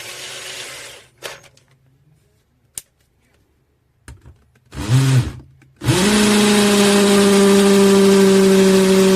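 KUZUPRO 21V cordless drill-driver: a short burst of noise and a few clicks, then a brief trigger pull about five seconds in that spins the motor up and straight back down. About a second later it runs steadily at full speed with a loud, even whine.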